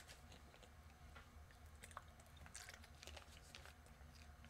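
Near silence: faint room tone with a low steady hum and a few faint, scattered ticks.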